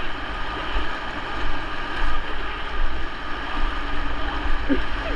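A river running high and fast, its water rushing steadily, with gusts of wind rumbling on the microphone.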